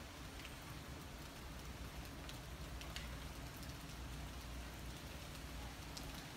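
Steady rain falling, an even hiss with a few single drops ticking close by, over a low steady rumble.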